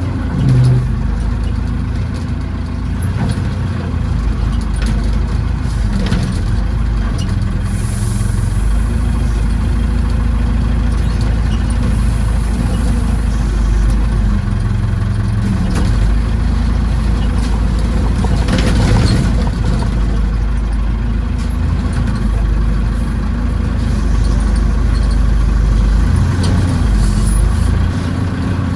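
Tractor backhoe's engine running steadily, its note stepping up and down every few seconds as the load changes, with a few brief knocks.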